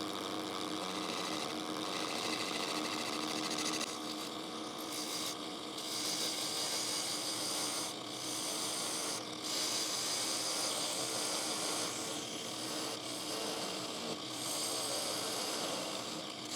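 Drill press running steadily, its bit cutting into the foot of an oak bowl to remove the nub and bore a shallow recess.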